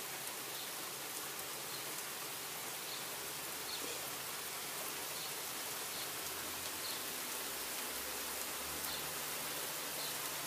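Steady rain falling on paved asphalt, an even hiss with faint scattered ticks of drops.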